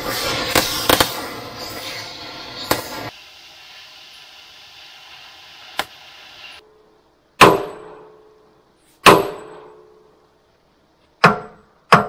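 Oxy-fuel cutting torch (gas axe) hissing as it cuts through rusted bolts on a bulldozer blade. It stops about six and a half seconds in, and then come four loud metal-on-metal blows on the dozer's steel, each ringing briefly, about one and a half to two seconds apart.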